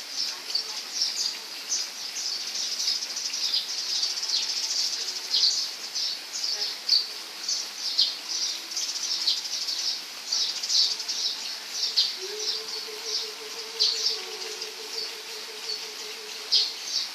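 Small birds chirping and calling, several short high notes a second. From about twelve seconds in, a lower, evenly pulsing tone joins for about five seconds.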